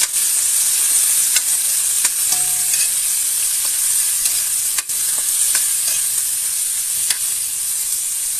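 Chopped vegetables frying in hot oil in a black wok, a steady sizzle, while a spoon stirs them, clicking and scraping against the pan now and then.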